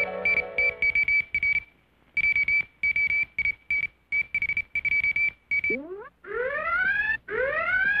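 Cartoon sound effects: quick, irregular high-pitched beeps at a single pitch, over a held music chord that fades out in the first second or so. About six seconds in, the beeps give way to a series of rising whistling swoops, each about a second apart.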